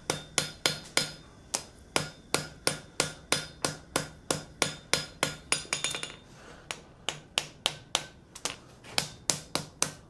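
Blacksmith's hand hammer striking a glowing forge-welded steel T on the anvil at about three blows a second, each blow with a short metallic ring. He is peening the fresh tee weld to blend and disguise the seams. The hammering pauses briefly a little past the middle, then resumes.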